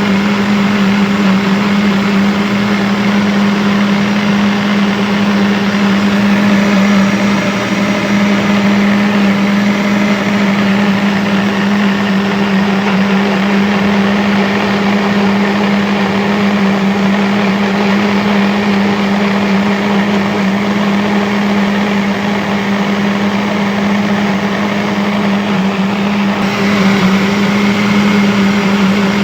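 Electric blender running steadily at one speed: a continuous motor hum with a strong low tone under a dense whirring noise. The higher whir brightens slightly near the end.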